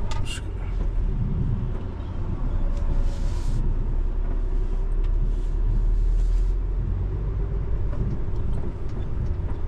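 Heavy truck's diesel engine and cab rumbling steadily while driving slowly, heard from inside the cab, with a couple of brief hisses partway through.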